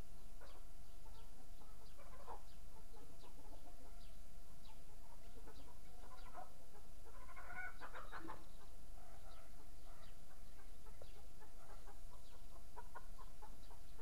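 Birds calling: scattered short high chirps and lower calls, with a busy cluster about seven to eight seconds in, over a steady low hum.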